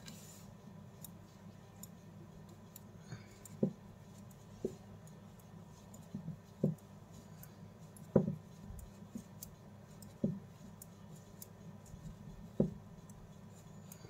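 Knitting needles clicking softly as stitches of cloth-strip yarn are worked, a single click every second or two, over a faint steady hiss.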